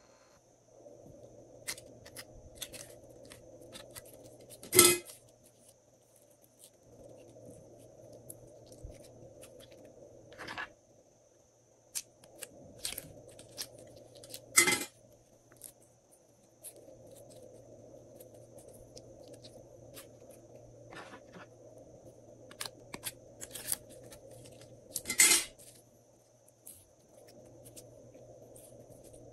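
Hands handling soft molded slime pieces and setting them onto white slime in glass trays: small sticky clicks and crackles over a faint steady hum, broken by three sharp clacks about ten seconds apart.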